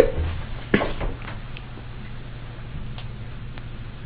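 Quiet room tone with a steady low hum. A short knock comes about three-quarters of a second in, followed by a few faint clicks.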